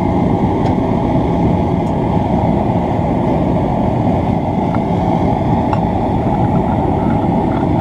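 Steady low roar of a lit propane forge's burner.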